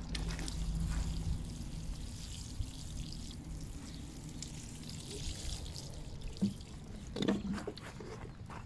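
Water pouring and trickling onto freshly mulched soil in a garden pot, watering the mulch in.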